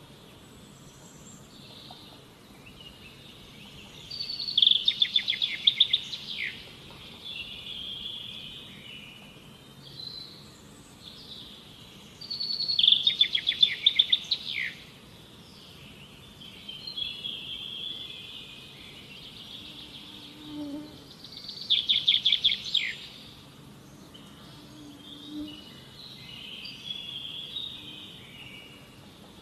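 Wild birds singing: a loud, rapid run of high notes lasting about two seconds comes three times, roughly eight seconds apart, with quieter chirps and warbles between.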